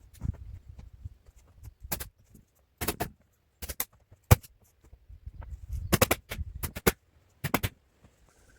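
A series of sharp knocks and clatters at uneven intervals, some single and some in quick clusters.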